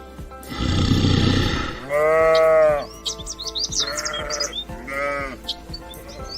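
Sheep bleating: a rough, noisy call about half a second in, then a loud bleat about two seconds in, followed by two shorter bleats.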